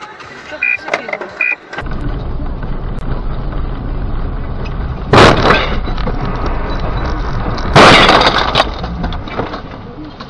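Two loud impacts of a car collision, about two and a half seconds apart, the second longer, over steady low road and engine noise inside a car. Before that, a short electronic beep repeats about every 0.8 s and is cut off.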